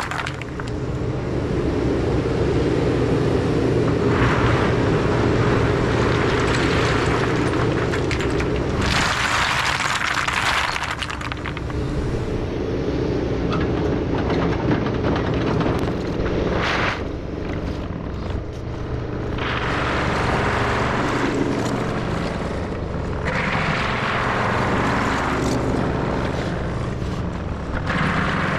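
Takeuchi TB2150 excavator's diesel engine running steadily under work. Louder noisy stretches of a second or two come and go every few seconds over the engine's drone.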